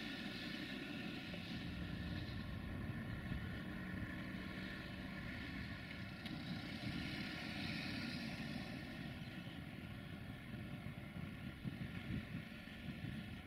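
A diesel railway engine running steadily: a constant rumble with several steady tones above it.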